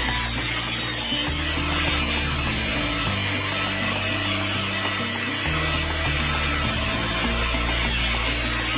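Benchtop table saw running steadily and ripping rosewood strips, a continuous cutting noise with a high whine. Background music with a low bass line plays underneath.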